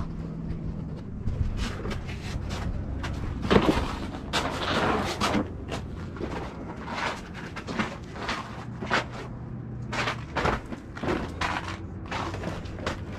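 Irregular knocks, clunks and rustling of gear being handled inside a small ice shack, the sharpest knock about three and a half seconds in, over a steady low hum.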